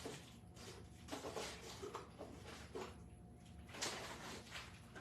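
Rustling and knocking of objects being handled, in several short bursts, over a low steady hum.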